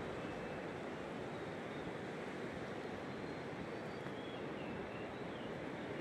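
Steady rushing noise, even and unchanging, like wind or a fast river. A few faint short high chirps come through in the second half.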